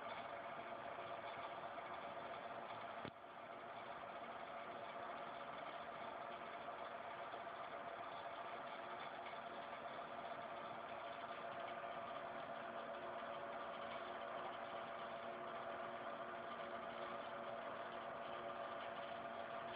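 Industrial three-axis CNC milling machine running: a steady mechanical hum with a constant whine. A click about three seconds in, after which the level briefly drops and recovers.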